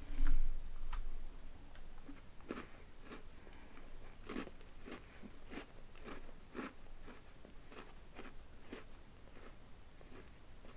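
Close-up chewing of a crunchy Fudge Stripes cookie, with short crisp crunches about twice a second, after a louder noise at the very start.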